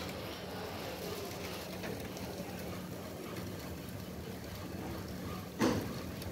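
Steady low hum with an even hiss from a liquid oxygen tanker unloading into a storage tank. A short, louder burst of noise comes about five and a half seconds in.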